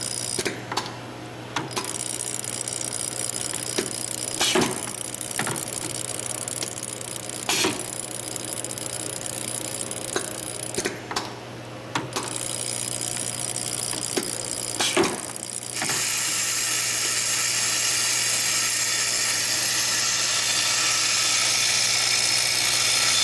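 Automatic tapping and drilling machine running: a steady motor hum with sharp clicks and clacks every second or few as its pneumatic gripper and air cylinders actuate. About two-thirds through, a louder steady rattle takes over as the vibratory bowl feeder shakes its load of small steel parts.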